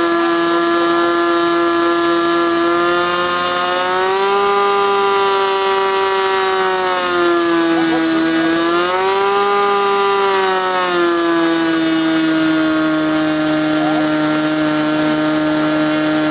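SIG Kadet LT-40 model airplane's glow engine running steadily at high speed on the ground during its break-in run, with a buzzing propeller tone. The pitch rises a little about four seconds in, dips briefly around eight seconds, rises again, and settles back to its first speed about eleven seconds in.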